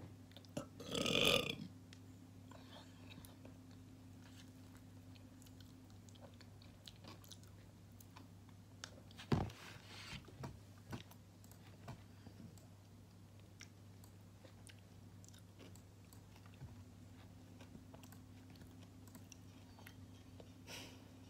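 A person eating yogurt: a loud burp about a second in, then a sharp click near the middle and a few soft clicks and eating sounds, over a low steady hum.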